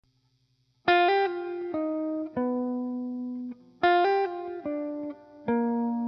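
Background music: a short melody of notes that each fade after they are struck. It starts about a second in, and the same phrase comes again about four seconds in.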